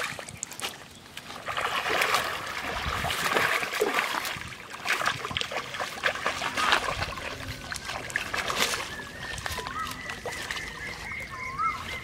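A hooked fish splashing and thrashing at the surface of a pond, in repeated irregular splashes that ease off after about nine seconds.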